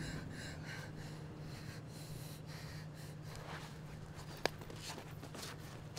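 Faint breathing and sniffing of a hurt young man lying on the ground, over a low steady hum, with one sharp click about four and a half seconds in.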